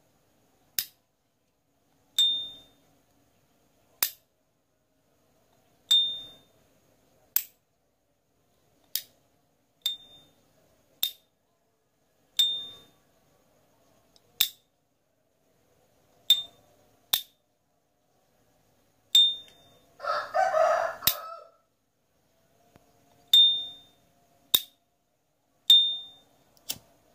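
S.T. Dupont lighter's hinged metal lid being flicked open and snapped shut again and again: a sharp metallic click about every second and a half, seven of them with the lighter's signature high, clear 'ping' ringing briefly after. About two-thirds of the way through there is a louder noisy burst lasting about a second.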